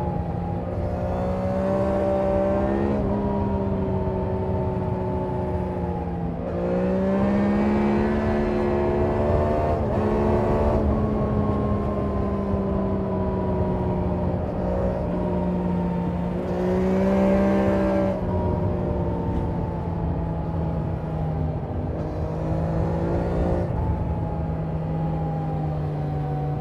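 Triumph Daytona 660 inline three-cylinder engine and exhaust heard from the saddle, giving several bursts of throttle where the note climbs, with long stretches between where the note slowly falls as the bike rolls off.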